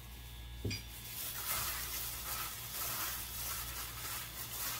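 Gloved hands mixing seasoned boiled lamb's-head meat in a ceramic bowl: a continuous crinkling rustle of thin plastic gloves against the meat, starting about a second in after a single light click.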